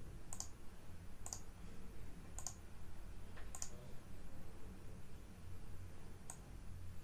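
Computer mouse button clicking: four sharp clicks about a second apart, then one more near the end, over a faint low hum.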